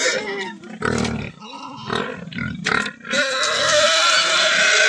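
Pigs grunting and squealing for feed, then about three seconds in water is poured from a metal bucket into a plastic tub of wet feed mash, splashing steadily.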